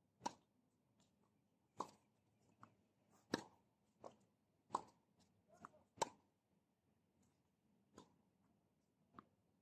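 Tennis ball hit by rackets and bouncing on a hard court during a singles rally: a string of sharp, short pops. The loudest come from the nearer player's serve about a quarter-second in and his strokes about three and six seconds in; fainter pops come from the far end.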